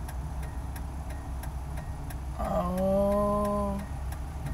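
A woman's drawn-out groaning whine, held for about a second and a half from about halfway in, while she rubs something out of her eye. Under it is the steady low hum of the car's idling engine.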